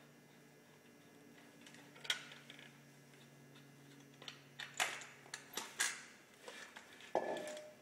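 Scattered sharp metal clicks and clanks from SCBA hardware as the high-pressure hose is uncoupled from the Scott air cylinder and the cylinder latch is released. The clicks begin about two seconds in and come thicker in the second half, with one duller knock near the end, over a faint steady hum.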